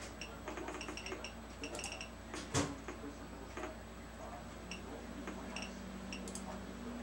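Scattered light clicks and small clinks, with one sharper knock about two and a half seconds in, over a steady low electrical hum.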